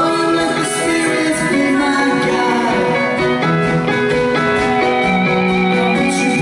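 Live rock band playing with electric guitars, drums and keyboard, with singing over it.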